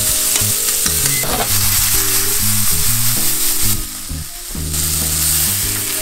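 Chopped asparagus and orange pepper sizzling in a stainless steel frying pan as they are stirred. The sizzle dips about four seconds in, as the pan is lifted away from the stove. Background music with steady low notes plays under it.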